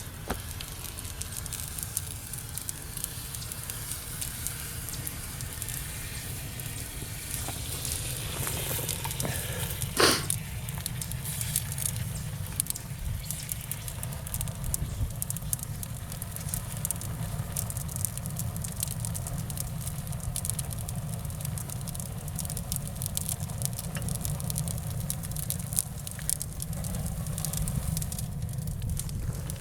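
Malfunctioning dishwasher running: a steady low hum with a continual crackling, sizzling noise over it, and one sharp crack about ten seconds in.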